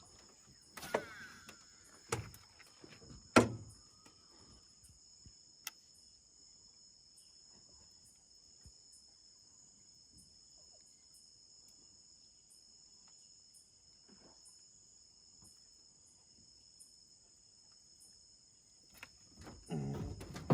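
Steady high-pitched chorus of crickets, a constant ringing drone, with a few sharp knocks in the first four seconds, the loudest about three and a half seconds in.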